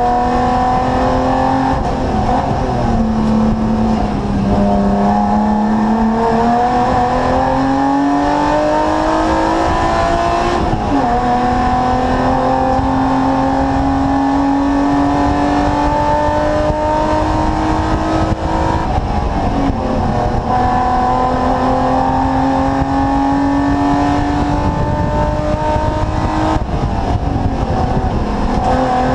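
Race car engine heard from inside the cabin, pulling hard up a hill climb. Its pitch climbs steadily through each gear and drops back sharply at each upshift, three times, after easing down briefly near the start.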